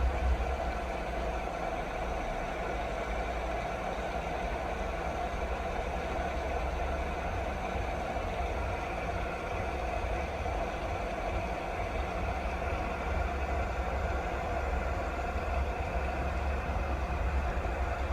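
Steady rain, an even hiss with a constant low rumble beneath it.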